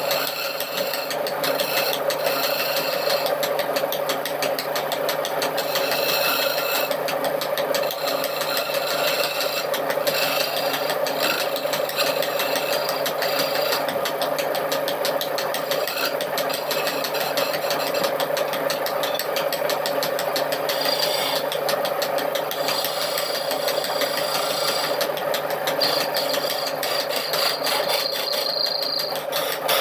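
Electric power tool running steadily at a constant pitch while working wood, with a gritty grinding rasp over the motor's whine.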